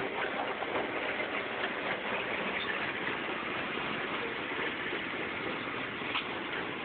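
Emping jagung corn-flattening machine running with a steady mechanical noise.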